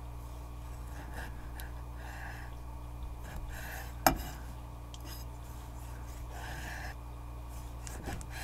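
Kitchen knife slicing through soft raw tiger puffer milt on a wooden cutting board: a few quiet, soft strokes, with one sharp knock about four seconds in and small clicks near the end, over a steady low hum.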